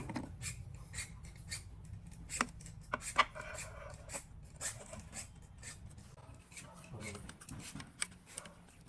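Irregular light clicks and taps of hand tools and small parts being handled, with a louder knock about two and a half seconds in and another about three seconds in. A faint low hum sits underneath and fades out about two-thirds of the way through.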